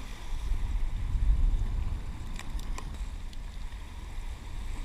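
Wind rumbling on the microphone with waves washing against the jetty rocks, swelling about a second in. A few faint clicks come about two and a half seconds in.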